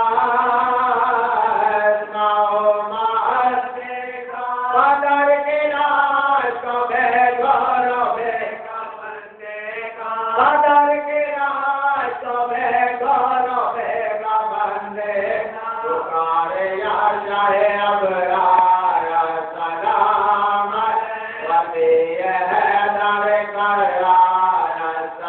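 Chanted vocal recitation: a voice holding long, wavering melodic notes, with a short break about nine seconds in.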